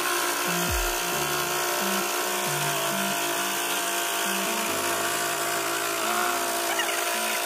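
Homemade scroll saw driven by a 775 gear motor running steadily, its blade cutting through a thin sheet, with background music over it.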